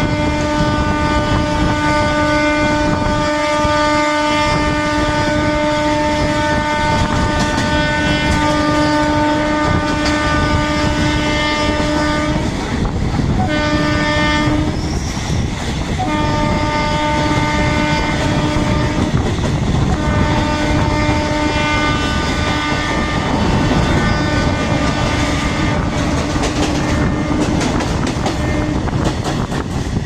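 Electric multiple unit (EMU) local train's horn blaring almost without pause: one long blast of about twelve seconds, a couple of short breaks, then more long blasts that stop shortly before the end. Underneath are the rumble and rail clatter of the train running at speed, with wind rushing past the open door, as it runs through a station without stopping.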